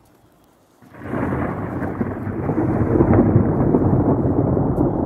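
Thunder from a close lightning strike during a snowstorm (thundersnow). After a near-quiet second, a loud rumble breaks in abruptly and keeps rolling without let-up.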